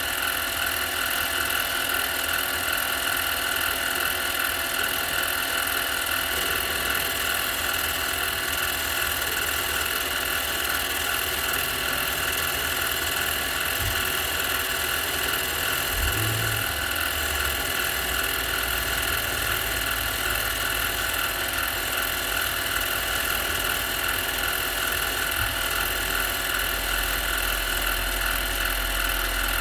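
A steady mechanical drone with several constant whining tones, like a motor running. The deeper tones shift about halfway through and again near the end.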